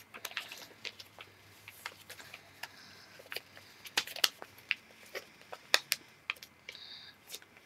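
Folded printer paper being handled and creased, giving a run of irregular crisp clicks and crackles.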